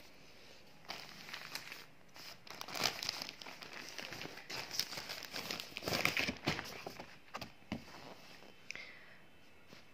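Clear plastic clothing packaging crinkling and rustling as it is handled and pulled open, in uneven spurts from about a second in until near the end. A sharp click at the very start.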